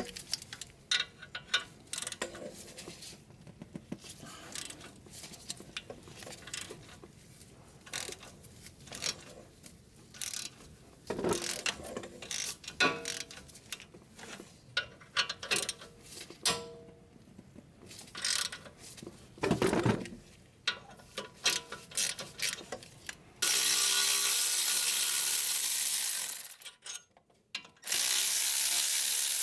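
Ratchet clicks and the clatter of a socket and extension on a brake caliper bolt, then about 23 seconds in a cordless ratchet whirs for about three seconds, stops, and whirs again near the end, spinning out the 13 mm caliper bolts.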